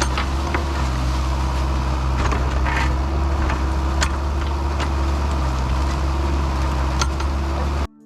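Kubota excavator's diesel engine running steadily under work, with a steady low drone and a faint wavering whine over it. A few sharp clinks and knocks come through at irregular moments. It cuts off abruptly near the end.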